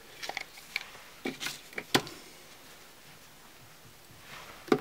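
Handling noise: a few short clicks and taps as tools are picked up and handled, the sharpest just before the two-second mark, then a pause and another knock near the end.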